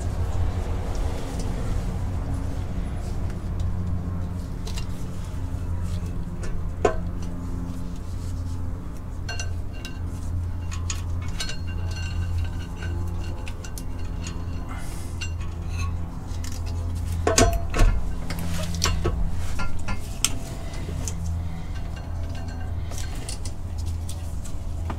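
Metal parts of a twin-disc clutch assembly clinking and knocking as they are handled and fitted, with sharper knocks about seven and eighteen seconds in.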